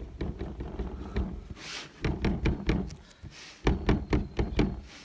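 Rolled-up paint-loaded sock dabbed repeatedly against the painting surface, giving clusters of soft, dull thumps, with a short hiss about one and a half seconds in.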